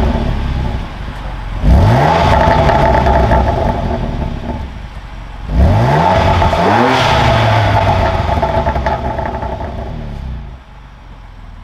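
BMW M4's S55 twin-turbo inline-six, fitted with Eventuri carbon intakes and titanium chargepipes, revved hard twice: the pitch climbs quickly about two seconds in and again about six seconds in, is held high for a few seconds each time, and falls back to idle near the end.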